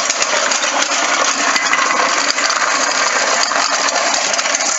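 Old-fashioned manual reel lawnmower being pushed, its spinning blade reel giving a steady metallic clattering whir.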